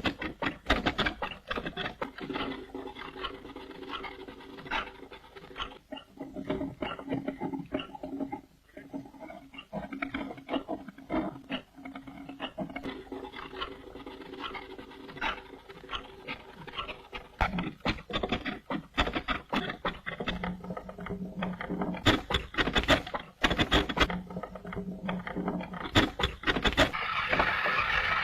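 A hand-powered lathe turning a large log, with a cutting tool scraping the spinning wood: rapid irregular knocks and clicks throughout, and a low steady tone in long stretches.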